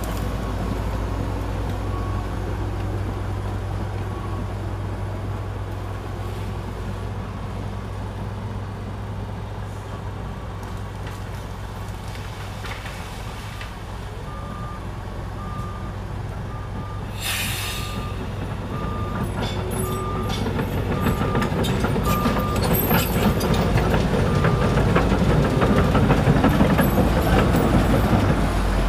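Komatsu D61EX bulldozer's diesel engine running steadily, growing louder with clanking over the last third as the machine works. From about halfway a reversing alarm beeps about once every three-quarters of a second, with a short burst of hiss in the middle of it.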